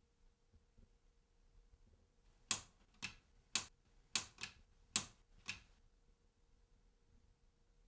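Wall rocker light switch flicked back and forth, seven sharp clicks about half a second apart, over a faint steady hum.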